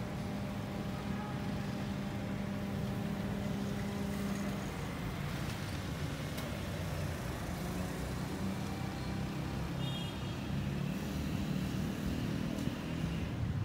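Steady rumble of road traffic going by, with one vehicle's engine drone holding steady for the first four seconds or so.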